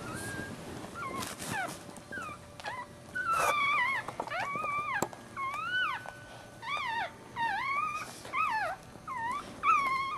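Newborn Maltese puppy crying: a run of short, high squeals that rise and fall in pitch, sparse at first, then coming thick and louder from about three seconds in.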